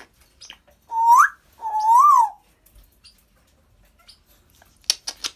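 African grey parrot whistling two notes, the first gliding upward and the second rising and then falling, followed near the end by a quick run of sharp clicks.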